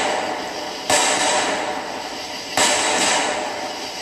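Aerial fireworks bursting: two loud booms about a second and a half apart, each trailing off in a long echoing decay.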